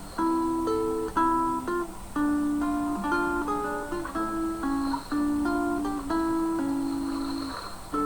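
Acoustic guitar playing a slow, gentle melody of plucked notes, several ringing together, as relaxing background music.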